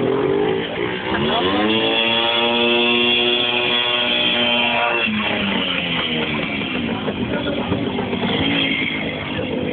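WSK two-stroke motorcycle engine being revved hard: its pitch rises about a second in, holds at high revs for about four seconds, then drops back to rougher, uneven running.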